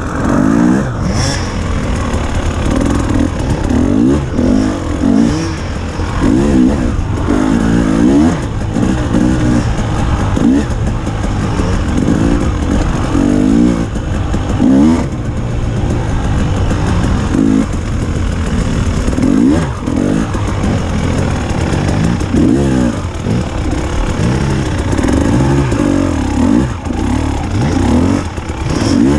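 Dirt bike engine ridden hard on a muddy track, the throttle opened and shut again and again. The pitch sweeps up and drops back every second or two.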